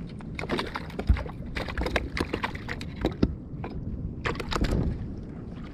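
Irregular knocks and clicks with water sloshing around a fishing kayak at sea.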